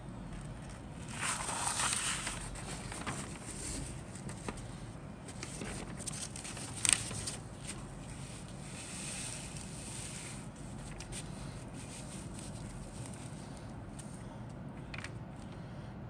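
Paper instruction-sheet pages being turned and handled: rustling sweeps of paper, the loudest about a second in, with a sharp crackle near the middle and softer rustles later.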